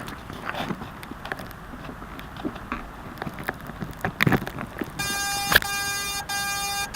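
Outdoor wind on the microphone with scattered small clicks, then music with sustained tones comes in about five seconds in.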